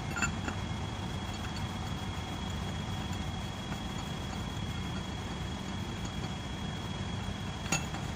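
Front wheel hub nut on an Isuzu 4HK1 truck being worked loose with a long-handled socket wrench over steady low background noise, with a sharp metallic click near the end.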